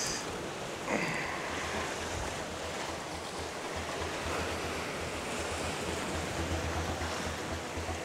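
Surf washing against a rocky shore, with wind buffeting the microphone in low rumbles from about halfway through. A short sound falling in pitch comes about a second in.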